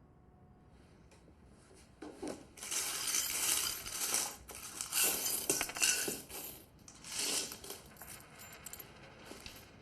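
Small metal objects clinking and jingling in irregular bursts, starting about two seconds in and dying down with a few faint clicks near the end.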